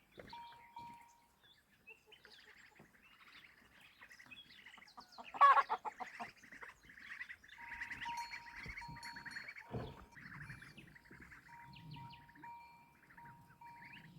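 Chickens and other birds calling and chirping, with one louder call about five and a half seconds in.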